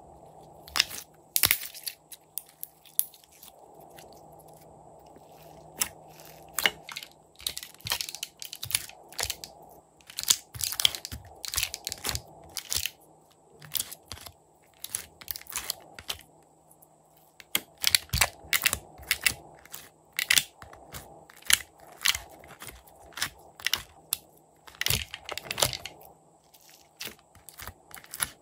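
Slime being pulled from a plastic tray and pressed by hand: irregular crunchy clicks and crackles that come in short clusters.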